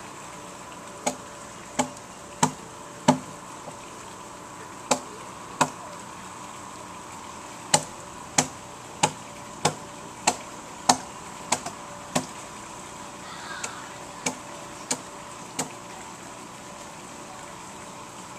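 Hand tools hollowing out a log dugout canoe hull: sharp blows of a hammer driving a chisel into the wood, about three blows every two seconds, in runs of a few strokes with short pauses between.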